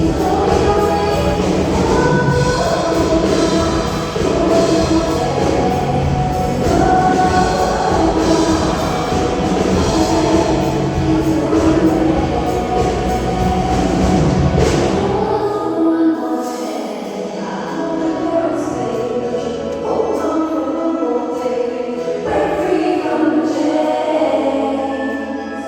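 A sound check: a group of voices sings together over amplified music. About halfway through, the bass drops away and the voices carry on over a lighter accompaniment.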